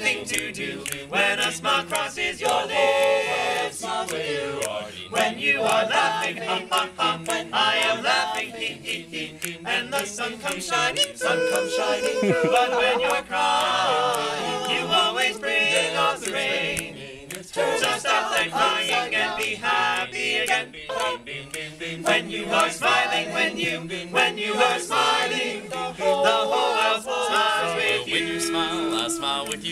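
Male a cappella group singing in close harmony, several voices together with no instruments.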